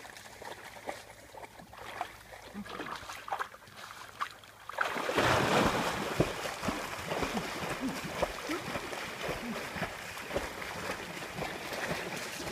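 A dog splashing and paddling hard in deep lake water, starting suddenly about five seconds in and going on steadily, as it struggles in the water after getting tangled in fishing line.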